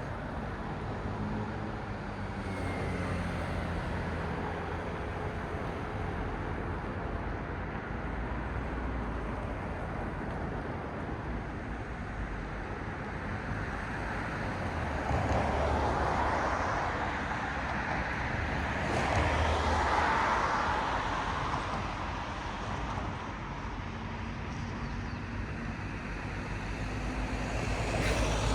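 Road traffic: a steady wash of car and tyre noise, with two cars passing closer and louder about halfway through and again a few seconds later.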